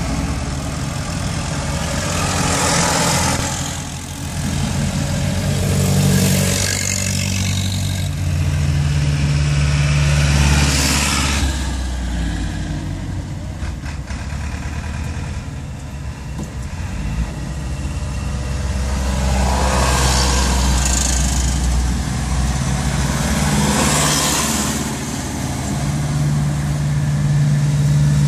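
Vintage farm tractor engines running as the tractors drive past one after another, over a steady low engine drone. Several tractors pass close by, each swelling louder and then fading, about five times.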